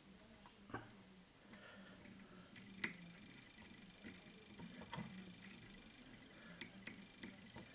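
Faint, scattered small clicks and ticks from fly-tying handling: a metal bobbin holder wrapping thread around a hook held in a tying vise. About seven clicks, the sharpest about three seconds in and three close together near the end.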